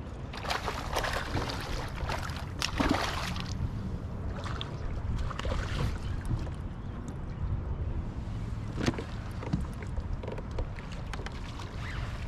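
Water sloshing and splashing around a kayak, with a steady low wind rumble on the microphone. There are louder noisy splashes in the first few seconds and a few sharp knocks later.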